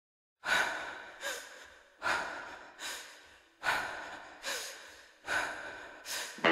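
Four rounds of heavy breathing at an even pace: each a sharp, loud breath that fades, then a shorter, softer one, about one round every 1.6 seconds. Music starts up right at the end.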